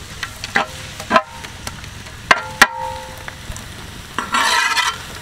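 Metal ladle stirring fried onions, tomatoes and chillies in a large metal cooking pan, with a soft sizzle underneath. The ladle knocks against the pan several times, one knock ringing briefly about two and a half seconds in, and there is a longer scrape about four seconds in.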